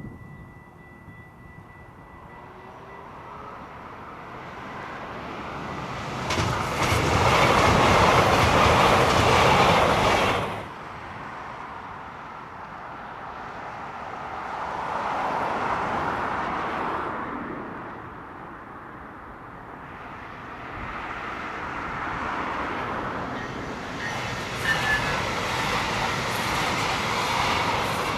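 Train rolling past on the rails: wheel and rail noise that swells and fades several times, loudest about a quarter of the way in, with sudden starts and stops between passes.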